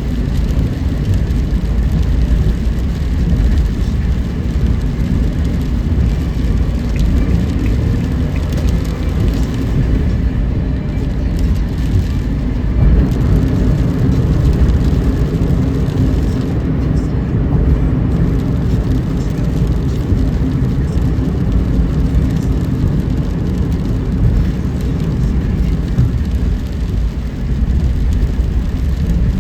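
A car's steady low road rumble while driving, engine and tyres running on a wet road.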